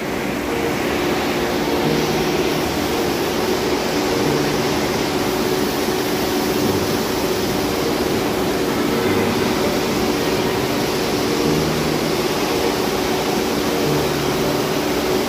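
Steady rushing noise of an indoor water park hall, with water running down the slide and the pool features, and a faint steady hum underneath.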